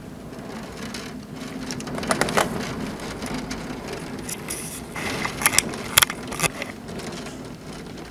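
Storm ambience: a steady hiss and low hum, broken by two clusters of sharp crackling clicks, about two seconds in and again from about five to six and a half seconds.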